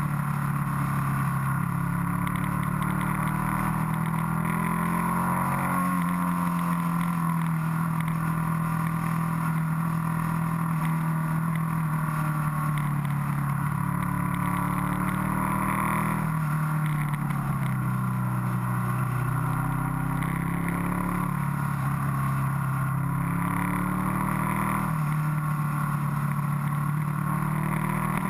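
Motorcycle engine running at road speed, its note rising and falling several times with throttle and gear changes, over a steady rush of wind and road noise on the onboard microphone.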